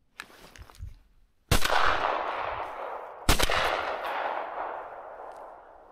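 Two shotgun shots at flying ducks, about two seconds apart, each followed by a long echo that slowly dies away.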